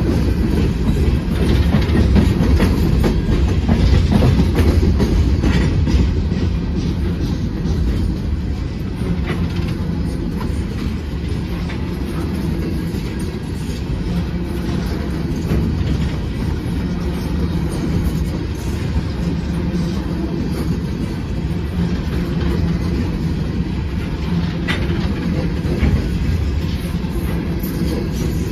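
A long string of open-top coal hopper cars rolling past close by: a steady low rumble of steel wheels on rail with clickety-clack over the rail joints. It is a little louder for the first six seconds, then runs on evenly.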